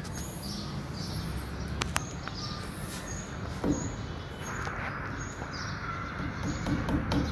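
Birds chirping in the background, with an occasional single knock. Near the end, rapid light hammer taps begin, driving a nail to fix a plastic pipe saddle to a wall.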